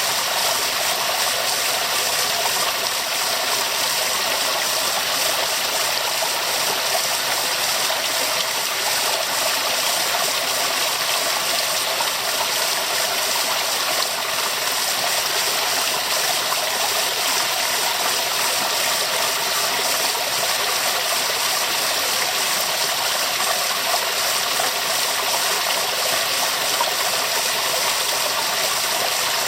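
Waterfall: a steady, even rush of falling water, bright and hissy with little low rumble.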